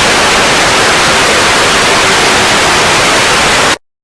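Loud broadcast static, an even hiss across the whole range, as the station's signal goes off the air. It cuts off suddenly near the end.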